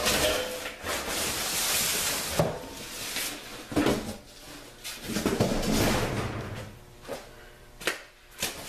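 Cardboard and styrofoam packing being pulled and shifted around a new air compressor: rustling and scraping, with several sharp knocks.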